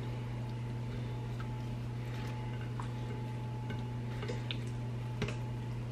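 Hands flipping raw chicken thighs on a ceramic platter: a few faint, soft clicks and wet slaps, scattered over a steady low hum.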